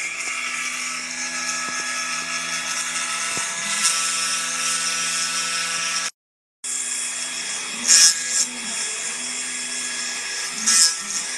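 Spindle of a small homemade desktop CNC engraving machine running with a steady high whine as its bit carves wood, with short louder bursts of cutting noise about eight and eleven seconds in. The sound cuts out completely for about half a second near the middle.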